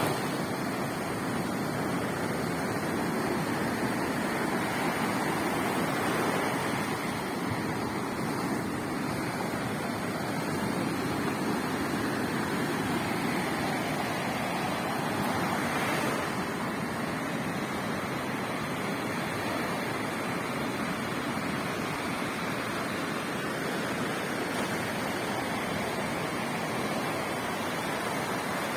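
Sea surf washing onto a beach: a steady rush of breaking waves that swells and eases a little now and then.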